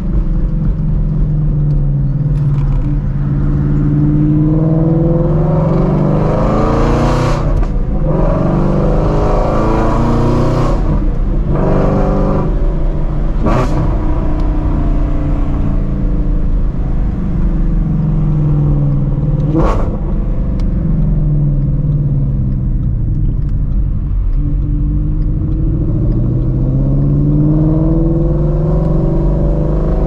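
2016 Shelby GT350's 5.2-litre flat-plane-crank V8, straight-piped with long-tube headers, accelerating and easing off several times, its pitch climbing and falling, with a few sharp cracks along the way.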